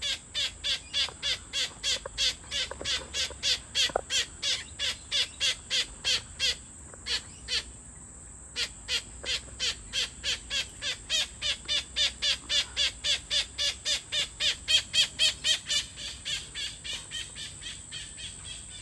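A bird calling in short, sharp, evenly repeated notes, about four a second, with a pause of about two seconds partway through and fading near the end. A steady high insect hum runs underneath.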